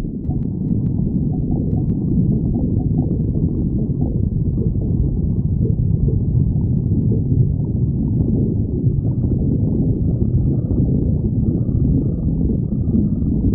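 A hungry person's stomach growling: a continuous low rumble that carries on without a break.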